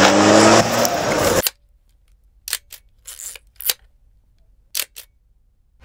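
A vehicle engine with wind noise, rising in pitch, cuts off abruptly about a second and a half in. Several camera shutter clicks follow over near silence, some in quick pairs.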